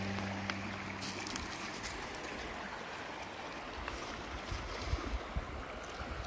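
Shallow creek water running steadily over rocks and stones, with a few faint clicks scattered through it.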